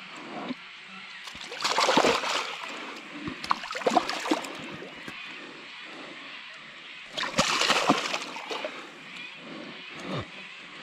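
A large carp thrashing in shallow water at the bank while held in a lip grip. There are two loud bursts of splashing, about two seconds in and again about seven seconds in, with smaller splashes between them.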